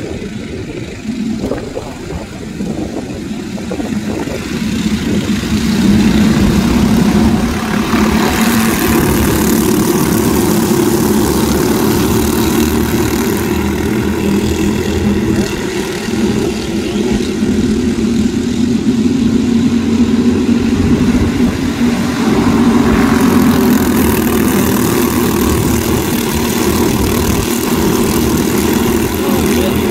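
A pack of quarter midget race cars' small single-cylinder engines running together, getting louder about five seconds in as the field gets under way, then holding steady at speed.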